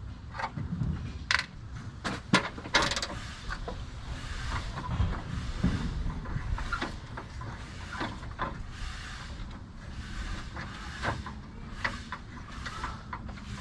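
Hand tools working on metal: irregular sharp clicks and clinks with stretches of ratcheting.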